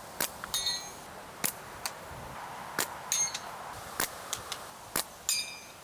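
Slingshots firing 9.5 mm steel balls: three times, a sharp snap of the bands is followed a fraction of a second later by a short metallic ping as the ball strikes a metal target, with other sharp clicks between them.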